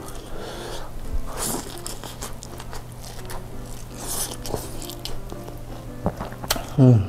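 Close-miked eating of saucy Turkish chicken kebab pulled apart by hand: biting, wet chewing and smacking clicks over background music. Just before the end comes a brief loud pitched sliding sound.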